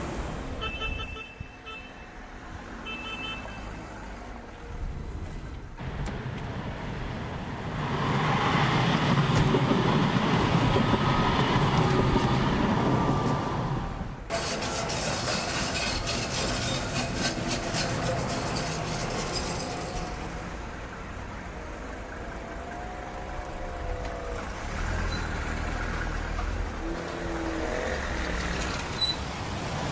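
Modern street trams running through a city amid street traffic noise, with trams passing close by.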